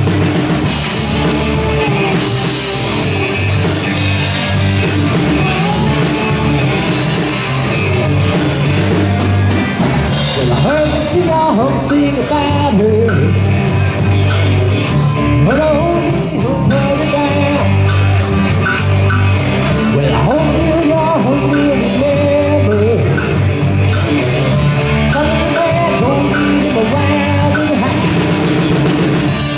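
A rock band playing a song live: a lead singer over drum kit, guitar and a bass line of long held notes.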